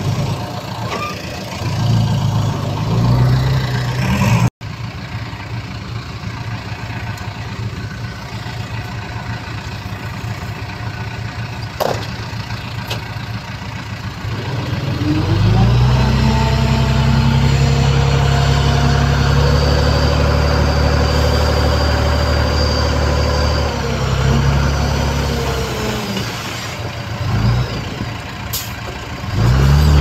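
Heavy diesel engine of earthmoving machinery, running at low revs, then revving up about halfway through and holding high revs under load for several seconds with a high whine, before dropping back.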